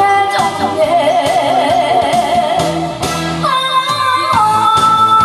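A woman singing into a microphone over amplified music accompaniment, holding one long note with wide vibrato, then moving on to steadier held notes.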